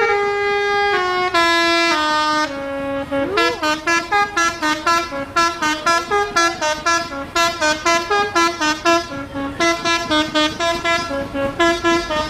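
Basuri telolet horn, a multi-note musical bus horn, playing a tune: a few long held notes stepping down in pitch, then a quick run of short notes, about three a second.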